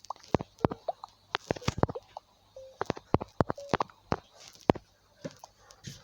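Clatter of small objects being handled and packed: a quick, irregular run of clicks and knocks.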